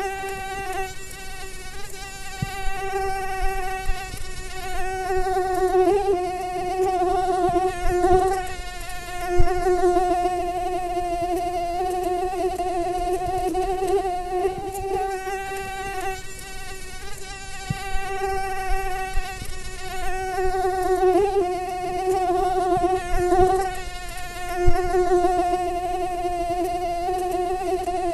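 Mosquito whining in flight: a continuous buzzing tone with a slightly wavering pitch that swells and fades in loudness.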